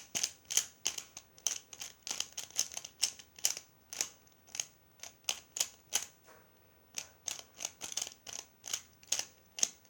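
Plastic clicking of a pyraminx puzzle being turned fast during a speedsolve: quick, irregular clicks, several a second, with a brief pause about six seconds in.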